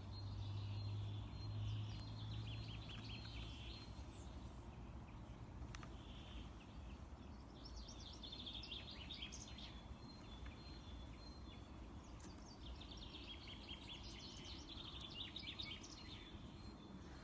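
Faint bird chirping in three bursts of rapid, high chirps over steady background noise, with a low hum that fades out after about six seconds.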